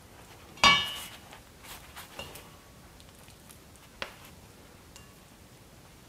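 Spatula knocking against a stainless steel mixing bowl: one loud ringing clink about half a second in, then a fainter clink around two seconds and a sharp tap at about four seconds.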